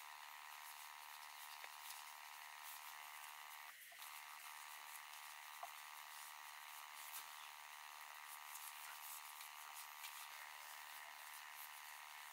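Near silence: a faint steady hiss with a few soft ticks.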